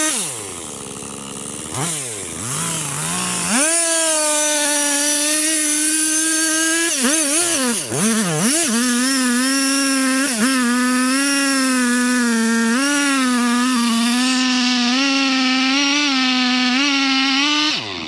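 Gas chainsaw revved in a few short blips, then held at full throttle cutting into the base of a large tree trunk, its pitch sagging and recovering as the chain bites into the wood. The throttle is released just before the end.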